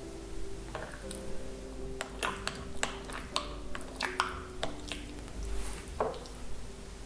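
A spoon stirring oil into a thick, wet chia seed mixture in a glass, squishing, with irregular light clicks of the spoon against the glass through the middle of the stretch. Soft background music with held notes plays underneath.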